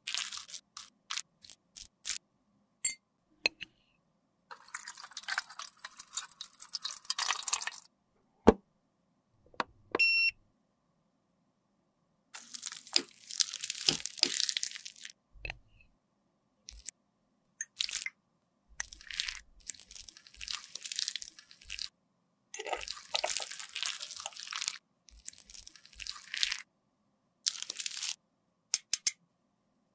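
Close-miked scraping, slicing and crunching of a lipstick bullet, worked with a plastic spatula and a knife, coming in separate scratchy bursts with short silences between. A sharp click and a short ringing tone come about a third of the way in.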